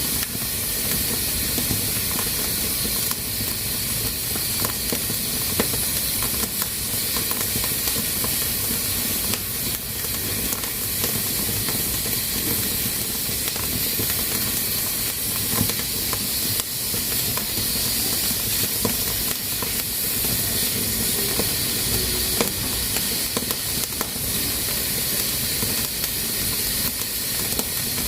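Pressure cooker hissing steadily as steam escapes under pressure, with small scattered clicks.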